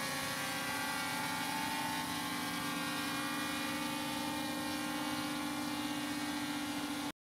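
HolyStone HS720e quadcopter drone's motors and propellers humming at a steady pitch as it hovers and descends. The sound cuts off suddenly near the end.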